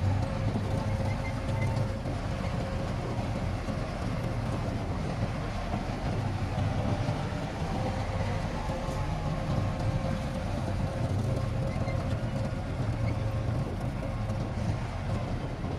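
Shantui crawler bulldozer's diesel engine running steadily under load, a low rumble with a faint steady whine above it.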